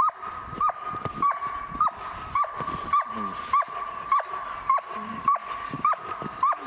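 German Shepherd whining: a steady high-pitched whine broken by repeated squealing notes, about three every two seconds.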